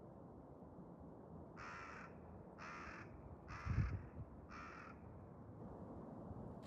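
A crow cawing four times, about one harsh caw a second. A low thump comes near the third caw.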